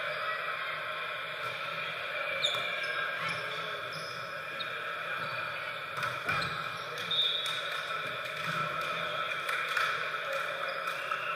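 Volleyball rally in a large gym: a few sharp slaps of the ball off players' hands and arms, one about six seconds in as a spike at the net, over the steady, echoing noise of the hall.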